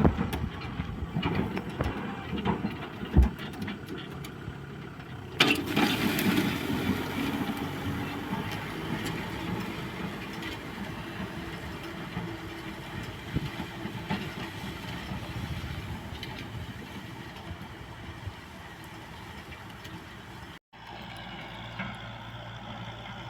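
Kubota M6040S tractor's diesel engine running steadily under load while ploughing a flooded rice field, with a sharp knock about three seconds in and the sound growing louder a couple of seconds later. Near the end it cuts out for an instant and resumes as a steadier engine hum.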